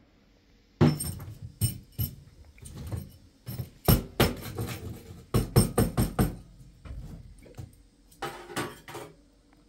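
An irregular run of sharp knocks and clatters, starting about a second in and stopping shortly before the end.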